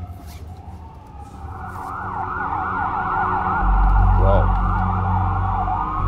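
Several sirens wailing at once, their rising and falling sweeps overlapping and growing steadily louder. A deep low rumble comes in about halfway through.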